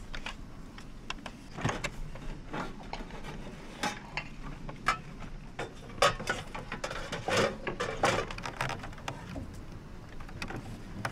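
Irregular wooden knocks and clunks of crates being shifted and straightened on a wooden cart, a string of separate thuds with short gaps between them.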